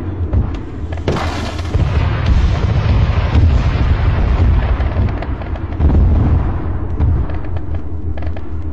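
Combat sounds: a continuous heavy rumble of explosions, with sharp cracks of gunfire and a loud blast about a second in.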